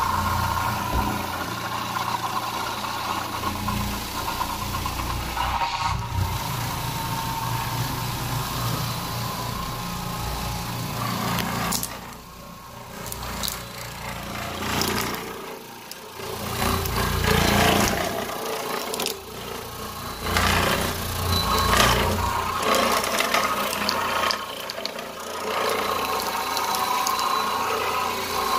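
Carpet-cleaning machine working a carpeted staircase, running steadily; it drops away briefly twice near the middle, then runs on more unevenly in surges.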